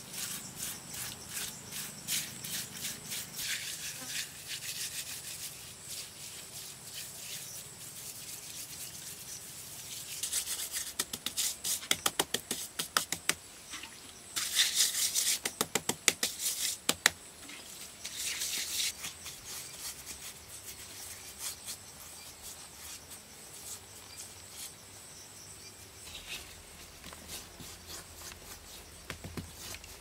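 A hand smearing and patting wet mud onto a sculpted earthen surface: rubbing with many quick wet slaps, thickest and loudest around the middle.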